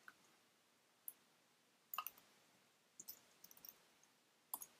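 Scattered clicks from a computer mouse and keyboard against near silence, single clicks about a second apart with a quick cluster of several about three seconds in.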